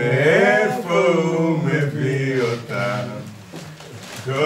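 A man's voice chanting in long, wavering notes, with a brief drop in loudness about three and a half seconds in.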